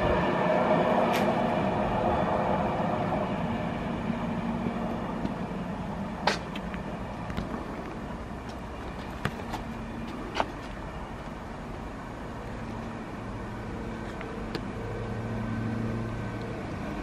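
A train of coaches hauled by Class 47 diesel locomotives rumbles away and fades, with a few sharp clicks along the way. It is followed by a Class 800 train approaching under diesel power, the hum of its underfloor engines growing louder near the end.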